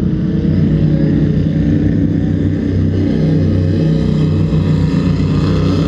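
Racing powerboat engines running flat out as the boats speed past, heard as a loud, steady low drone.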